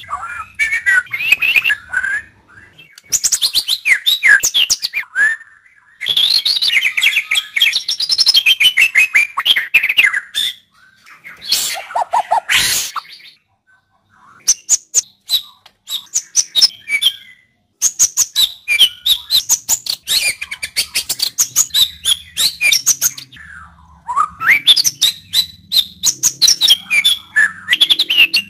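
White-rumped shama (murai batu) singing: loud phrases of rapid clicking rattles and whistled, gliding notes, each a few seconds long and broken by short pauses.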